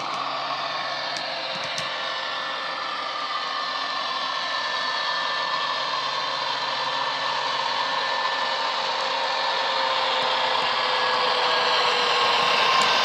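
Class 67 diesel locomotive sound from an ESU LokSound decoder playing through the small speaker of a Hornby OO model, the engine running under power with several steady tones, some sliding slightly lower. It grows steadily louder as the model approaches.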